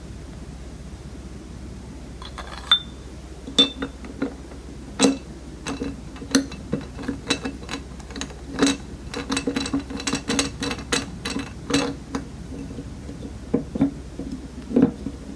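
Sharp metal clicks and light knocks as a gas-cartridge holder is screwed onto the stainless-steel head of an espuma whipping siphon, with a dense run of ticks starting about two seconds in.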